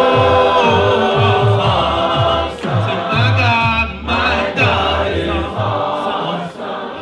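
Gospel worship singing: a choir and worship leader singing a praise song, with long held notes over a steady low accompaniment.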